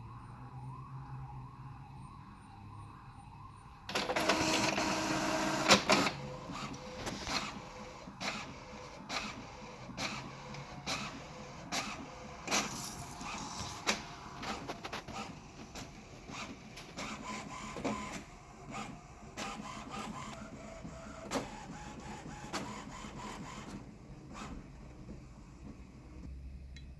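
HP OfficeJet inkjet printer printing its cartridge alignment page: a loud burst of mechanism noise about four seconds in as the paper is fed, then the print carriage working back and forth with many short clicks and whirs, quietening near the end.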